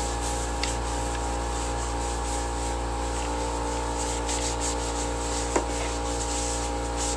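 Paper towel rubbing and scrubbing over a plastic air filter cover, a scratchy, uneven sound, over a steady background hum. One small click about five and a half seconds in.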